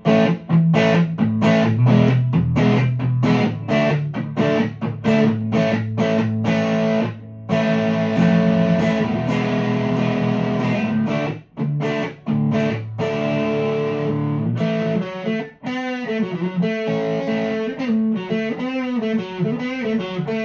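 Electric guitar, a Fender Player Telecaster on its bridge pickup through a Fulltone Full-Drive 2 overdrive, playing driven strummed chords, then switching about halfway through to a single-note lead line with string bends and ending on a held note.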